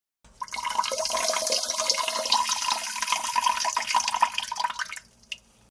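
A person urinating into a toilet bowl: the stream starts abruptly, splashes steadily into the water with a ringing note for about five seconds, then stops, followed by one last small drip.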